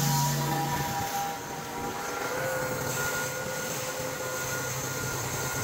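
Wood-Mizer LT35 portable band sawmill running with a steady engine drone. Its low hum drops away about a second in, leaving a slightly quieter drone.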